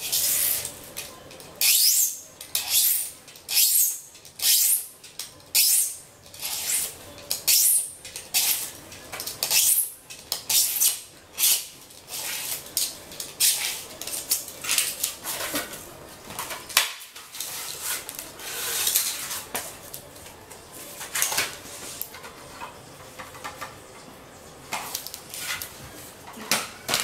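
Utility knife cutting cardboard in repeated drawn strokes, each a short rasping scrape, about one a second at first, then fewer and further apart.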